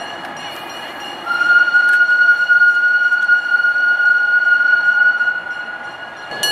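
Miniature park-railway locomotive whistle: one long, steady blast starting about a second in and stopping just before the end, over the fainter running noise of the train.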